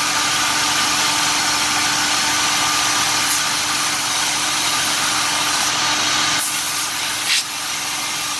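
Ford 302 V8 crate engine running steadily at a fast idle of about 2,250 RPM for cam break-in, with the whoosh of a very big flex fan. A short sharp sound about seven seconds in, after which the drone is a little quieter.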